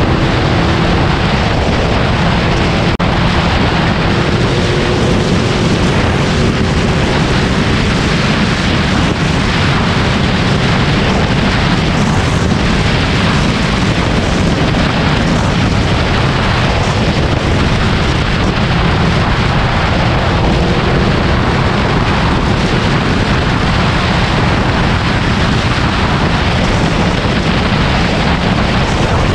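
Yamaha VMAX 1700's V4 engine running steadily at highway cruising speed, heavily mixed with wind rushing over the microphone.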